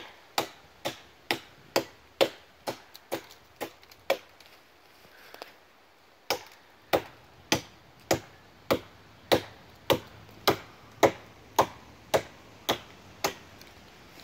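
Hatchet blade chopping into a standing tree trunk: sharp, evenly paced blows about two a second, with a pause of about two seconds in the middle before the chopping resumes.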